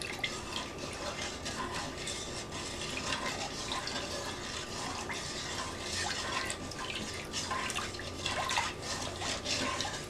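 Wooden spoon stirring pickle brine in a stainless steel bowl: liquid swishing, with many light taps of the spoon against the bowl as the canning salt dissolves.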